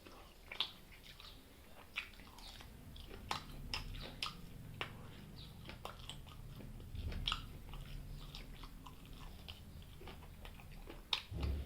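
A person chewing food close to the microphone, with irregular short, sharp mouth clicks scattered through.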